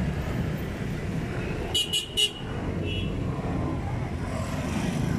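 Steady street traffic hum with three quick, high-pitched vehicle horn toots about two seconds in and a fainter toot a second later.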